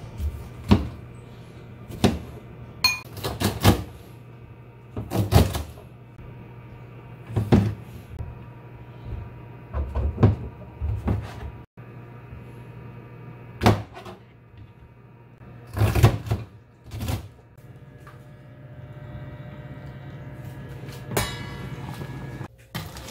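Kitchen knife knocking on a plastic cutting board in irregular chops as mushrooms are sliced, over a steady low hum. Near the end a metal clank with a short ring comes as the lid is lifted off a steel pot of boiling seafood.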